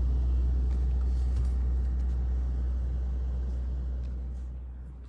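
Ice cream truck engine running with a steady low rumble after its jingle has stopped, fading away over the last second or so.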